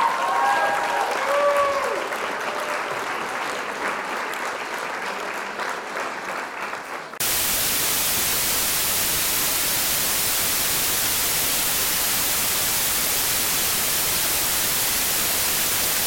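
A rough noisy hiss with a few short gliding tones in the first two seconds, then, cutting in suddenly about seven seconds in, a steady, loud hiss of white-noise static at one even level.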